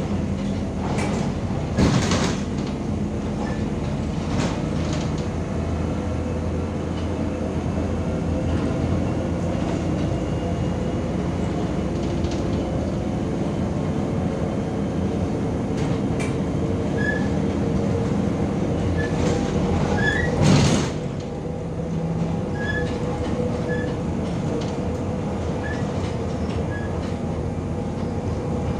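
Cabin noise inside a moving MAZ-105 city bus: steady engine and road rumble, with two sharp knocks from the body, a smaller one about two seconds in and a louder one about twenty seconds in.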